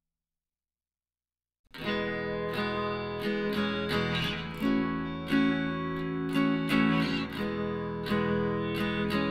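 Dead silence, then just under two seconds in background music starts abruptly: a strummed acoustic guitar with a steady rhythm of plucked chords.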